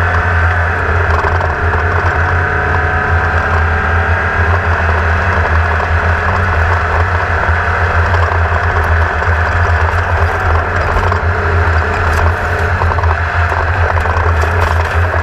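Class 1600 off-road race car's air-cooled VW engine running steadily at an even pitch, heard on board.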